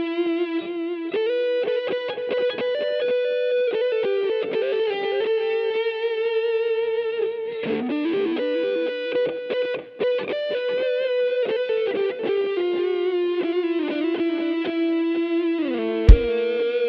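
Music with a distorted electric guitar playing a slow melody of long, wavering notes, played over a sound system at a sound check. Near the end comes a single loud, deep thump.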